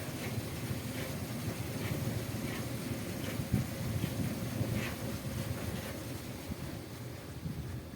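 Steady low mechanical rumble with a faint hum and light, irregular ticks, typical of running machinery.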